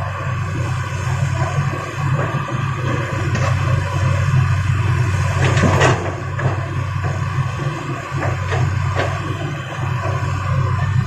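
Heavy diesel machinery running steadily, with scattered knocks and a louder scraping clatter about six seconds in, as rock is handled.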